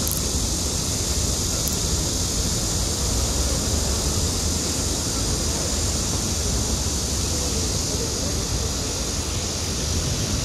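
KTX-Eum electric train rolling slowly away along the curved track: a steady low rumble with an even hiss over it.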